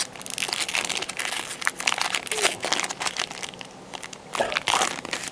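Foil wrapper of a Topps Chrome trading card pack crinkling and tearing as it is torn open by hand: a run of crackles with a short lull partway through.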